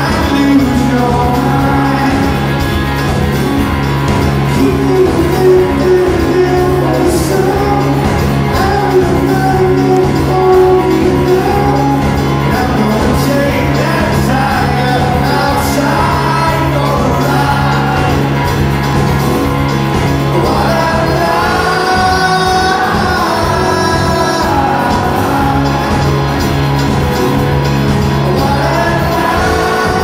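Live rock band performance recorded from the audience in a large hall: a male lead vocal sung over electric guitar and drums.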